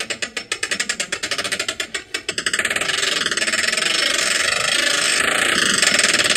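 TORQ Locker automatic locker in a Subaru WRX's R160 rear differential ratcheting as one rear wheel is turned by hand while the other is held: a quick run of even clicks, the sign of the locker's drive teeth unlocking and slipping over each other as designed. About two and a half seconds in the clicks speed up into a continuous fast rattle.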